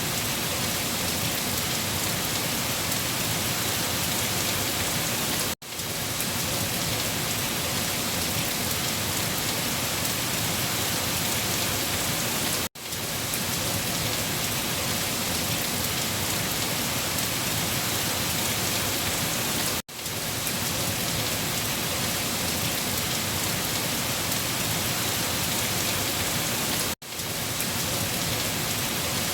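Heavy rain falling steadily on leaves, a dense even hiss. About every seven seconds it cuts out for an instant and swells back in.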